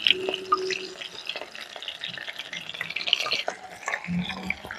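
Battered jackfruit pieces deep-frying in hot oil in a metal kadai: a steady sizzle with many small crackles.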